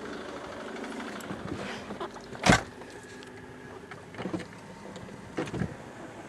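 Ford Mondeo Mk3 2.0 TDCi diesel engine running at idle, with a few scattered knocks and one loud sharp thump about two and a half seconds in.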